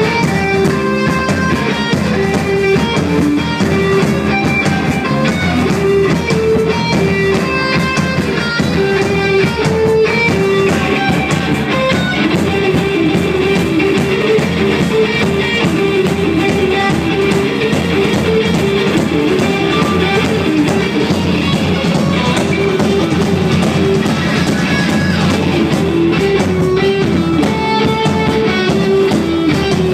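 Rock music with guitar and drum kit, playing steadily and loud with no words sung.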